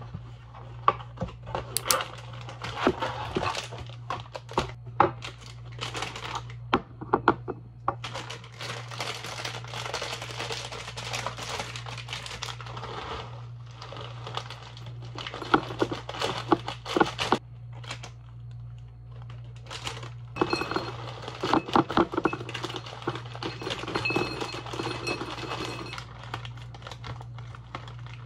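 Plastic granola bag crinkling as it is opened and handled, with granola clusters poured from it into a glass bottle in runs of crackling and clicks.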